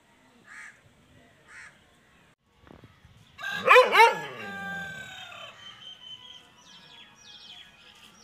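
A bigadi (gaddi-type) dog gives one loud howling bark that falls in pitch and fades over about a second and a half, about three and a half seconds in. Short high chirps of a small bird repeat faintly near the end.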